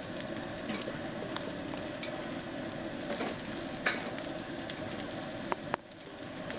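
Chopped onions sizzling steadily as they fry in oil in a steel pot, stirred with a spatula. The spatula scrapes and clicks against the pot a few times, with two sharp clicks close together near the end.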